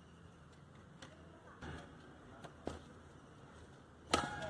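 Badminton rally: racket strings striking the shuttlecock, a few sharp hits about a second and a half apart, ending in a loud smash near the end. A voice follows the smash.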